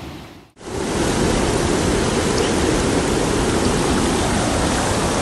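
Shallow river water pouring over a small weir and rushing past close by: a loud, steady rush that cuts in suddenly about half a second in.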